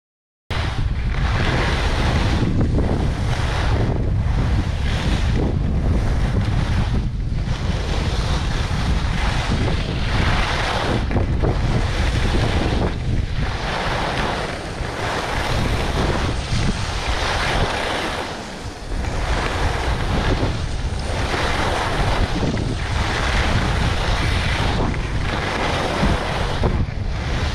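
Wind buffeting a hand-held phone's microphone during a fast ski run, with the skis' edges scraping over hard groomed snow, swelling and easing with each turn every second or so.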